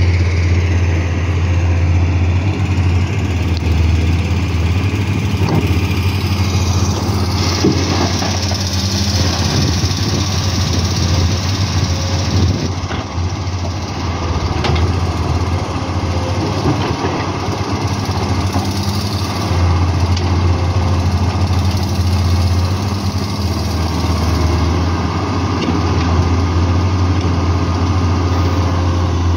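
Diesel engine of a Komatsu crawler excavator running steadily under working load. Its low hum swells and eases a little as it digs, with a few short knocks in the middle.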